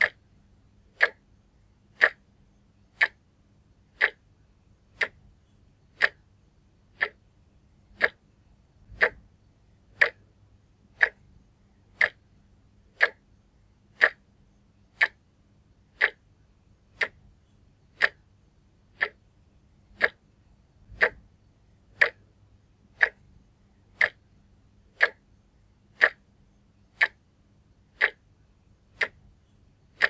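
Vintage wall clock ticking steadily, one sharp tick each second.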